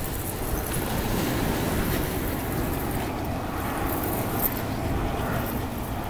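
Small waves breaking and washing over a pebbly shore, with wind rumbling on the microphone.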